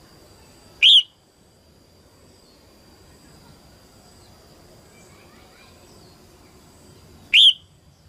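Female red-whiskered bulbul giving two loud, short calls that sweep sharply upward in pitch, about six seconds apart. Faint chirps of other birds and a faint steady high tone lie between them.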